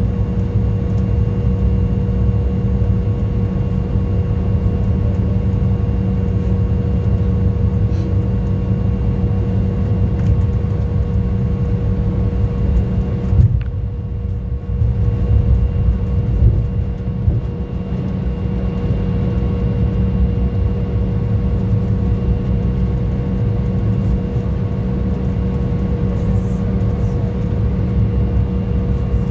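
Cabin noise of an airliner taxiing after landing: a steady low rumble of the engines and rolling, with a few steady whining tones over it. It dips briefly about halfway through.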